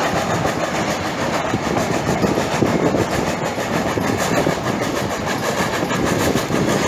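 Narrow-gauge train hauled by steam locomotive No. 346 rolling along the track: a steady rumble of wheels on rail with irregular clanks and knocks.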